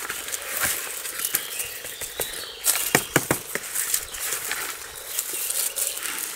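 Rustling and crackling of windmill palm seedling fronds and dry leaves against a plastic pot as the pot is tipped on its side and the root ball is worked loose by hand. A quick run of sharp clicks comes about three seconds in.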